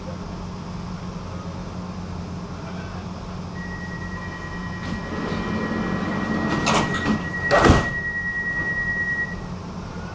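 Stockholm metro train's sliding doors closing over the steady hum of the carriage: a single high warning tone sounds for several seconds, a couple of knocks follow, and then a loud thud as the doors shut.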